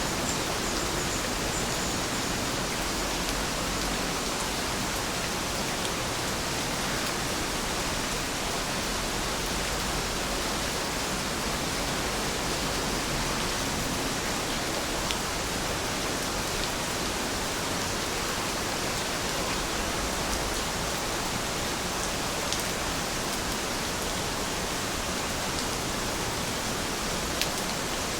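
Steady rain falling: a continuous, even hiss with a few faint drop ticks scattered through it.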